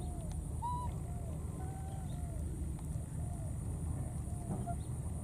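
Baby macaques calling: short, rising-and-falling cries, about two a second, over a low steady rumble.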